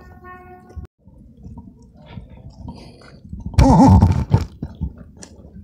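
A brief, loud, wordless human vocal sound about three and a half seconds in, over low rustling and handling noise from a phone carried while walking.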